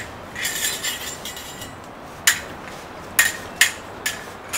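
Fencing swords clashing: metal blades sliding and scraping against each other, then about five sharp clinks of blade on blade in the second half.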